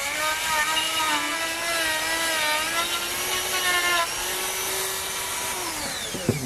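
Small electric power tool motor running with a steady whine, its pitch wavering slightly as it is worked against the metal. Near the end it is switched off and spins down, the whine falling away.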